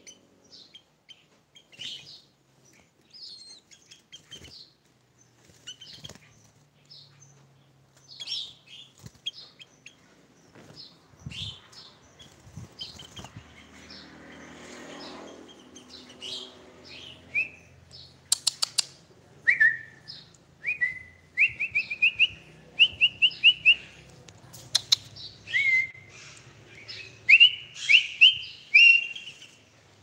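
Sooty-headed bulbul (kutilang) calling: scattered short high chirps, then in the second half a louder run of short, clear whistled notes, each sliding upward. A couple of sharp clicks and a brief rustle of handling sound among the calls.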